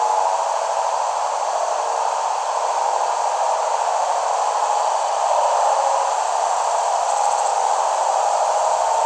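Steady hissing noise, even and unbroken, with no rhythm or pitch.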